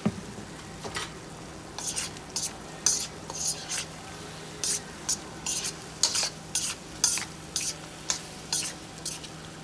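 Chicken pieces frying in a wok being stirred, a run of quick scraping strokes against the pan about twice a second that starts about two seconds in.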